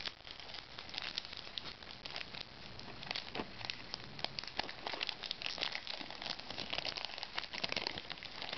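Crinkling and rustling of a baseball card pack's wrapper as it is opened, with a steady run of small irregular crackles.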